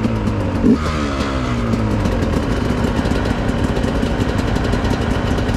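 Dirt bike engine running steadily, with its pitch sweeping about a second in.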